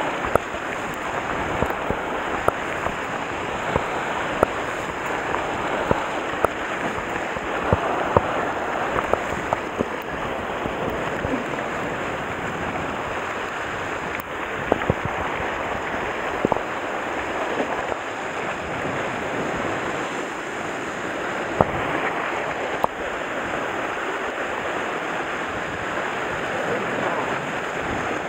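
Sea waves washing against a rocky shore, a steady rushing hiss, with wind on the microphone and scattered sharp taps and clicks throughout.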